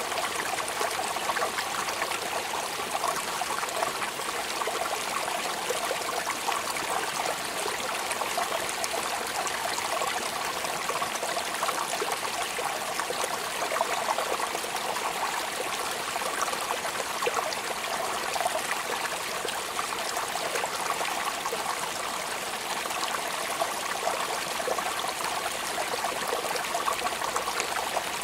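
Steady rain falling: a dense, even patter of countless small drops that runs on without a break.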